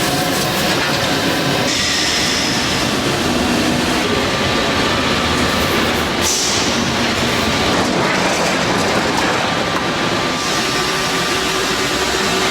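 Steady, loud metalworking shop noise: dense machine and tool noise with faint steady tones. It changes character suddenly about two, six and ten seconds in.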